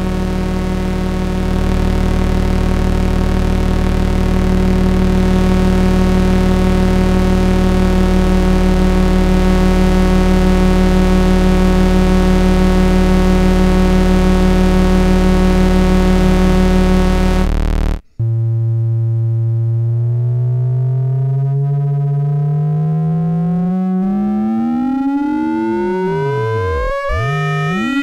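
Erica Synths SYNTRX analog synthesizer oscillators. First a steady buzzing drone with deep bass, which changes about eight seconds in and cuts off abruptly at about eighteen seconds. Then a new tone whose pitches glide up and down and cross one another as oscillator 1 frequency-modulates oscillator 2.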